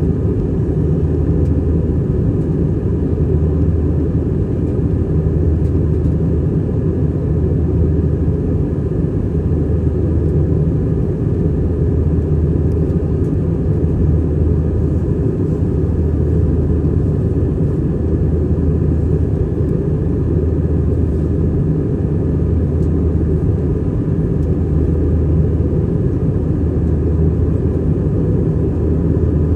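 Steady drone of an Airbus A320-200's jet engines and airflow inside the passenger cabin, deep and even with a slow regular throb.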